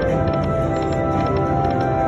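Slot machine's electronic game music playing during a free-spins bonus on a Cash Express Luxury Line: Timber Wolf machine, with steady held notes and quick ticks over it.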